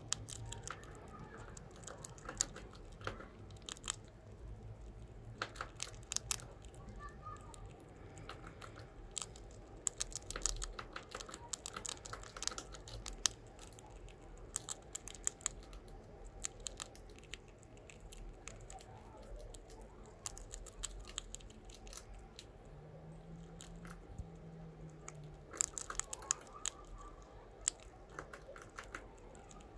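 Pet rat chewing and crunching a cheese snack: quick sharp crunches in irregular bursts, with short pauses between mouthfuls.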